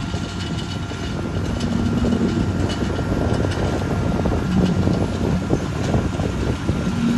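Tractor pulling a seed planter, with a low steady hum under a dense clattering rattle from the planter's stalk-crushing rollers. That roller noise is the only noise the planter makes, a sign that the sowing is running well.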